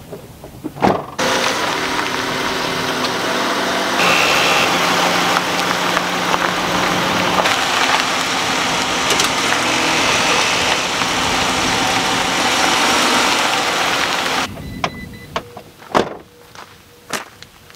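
Ram ProMaster van's engine starting up about a second in and running steadily as the van is repositioned, its note changing about four seconds in. The engine cuts off near the end, followed by a sharp thud and footsteps on gravel.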